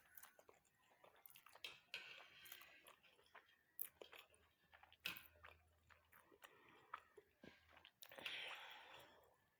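Faint chewing and wet mouth clicks of a person eating noodles, irregular and close to the microphone, with a couple of soft breathy puffs.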